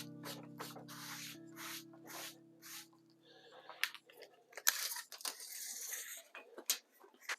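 Background music with held notes and a steady beat fades out about four and a half seconds in, followed by scattered sharp clicks and rustling handling noises.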